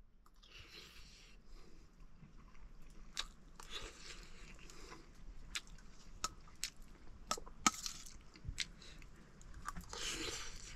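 A man eating rice with a spoon: close chewing and mouth sounds, with several sharp clicks of the metal spoon scattered through the second half.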